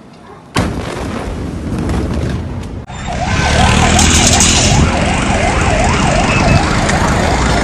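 A sudden loud blast about half a second in: the blast wave of a huge explosion reaching the microphone, with dense noise running on for about two seconds. After a cut about three seconds in, a siren or alarm wails rapidly up and down, about two cycles a second, over loud wind-like noise.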